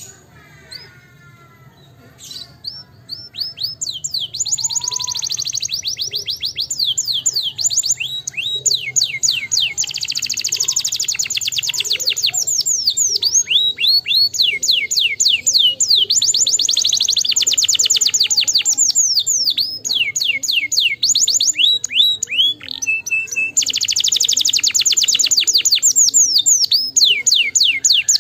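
Domestic canary singing: after a few scattered chirps, long fast trills of rapidly repeated, high down-sweeping notes begin a few seconds in and run on, with one short break a little past the middle.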